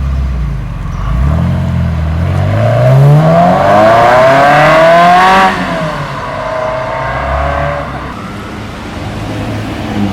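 A car accelerating hard as it pulls away. Its engine note climbs steadily for about four seconds and is loudest as it passes, then falls in pitch and level as it drives off.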